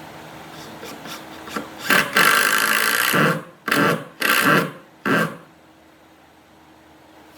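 A hand tool scraping across wood in four strokes: one long stroke, then three shorter ones in quick succession.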